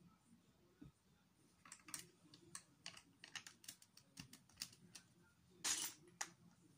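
Plastic Lego bricks clicking and clattering as hands handle and rummage through loose bricks: a run of short, sharp clicks begins about two seconds in, with a longer rattle of bricks near the end.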